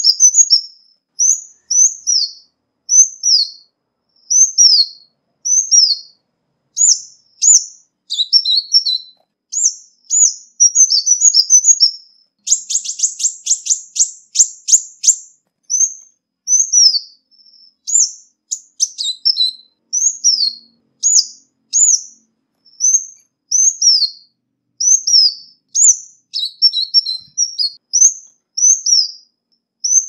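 Ruby-cheeked sunbird calling: a steady string of short, high, falling notes, roughly one a second, broken by a few quick chattering clusters and, near the middle, a fast rattling trill lasting about three seconds.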